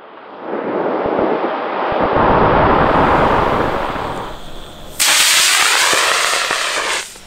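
Solid-fuel model rocket motor (an F27) burning on an RC plane in flight. A rushing hiss swells and fades over about four seconds, then a louder, sharper hiss with a sweeping, phasing quality starts and stops abruptly about two seconds later.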